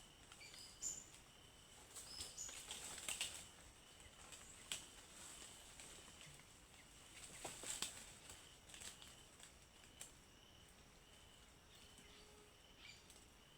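Faint tropical rainforest ambience: a steady high insect drone, a few short high bird notes, and scattered crackles and rustles, thickest about three seconds in and again near eight seconds.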